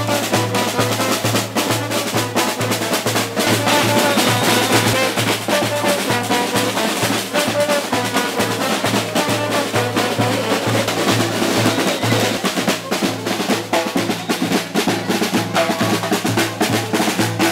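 Street band of drums and brass playing a fast, steady rhythm. A bass drum keeps a regular low beat under busy snare-drum strokes, with trombone and saxophone playing the melody.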